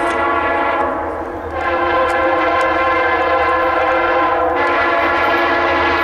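Norfolk Southern diesel locomotive's multi-chime air horn blowing a long, loud chord as the train approaches. It dips briefly about a second in and then comes back, over the low rumble of the locomotives.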